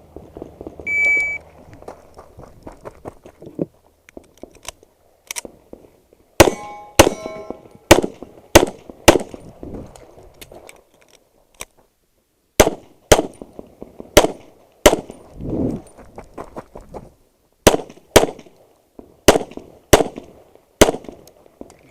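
An electronic shot timer beeps once about a second in. About five seconds later a handgun fires a string of quick shots in several groups, with a longer pause of about three seconds in the middle. Some hits set steel targets clanging and ringing.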